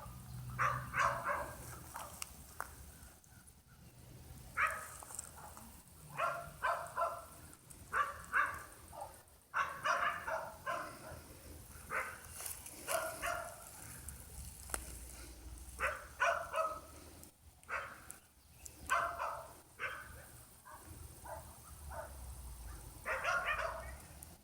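A dog barking over and over, in short bunches of two to four barks.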